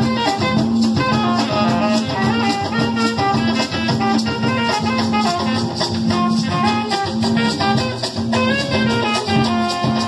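Carimbó band playing live, an instrumental passage with drums and shaken rattles keeping a steady beat under a stepping melody line, without singing.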